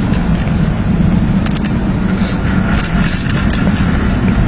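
Loud, steady rumble of city street traffic around a moving bicycle, with scattered sharp clicks and rattles on top.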